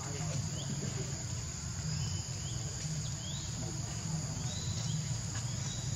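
Steady high-pitched drone of insects such as crickets or cicadas, with a low steady hum beneath and short rising chirps now and then.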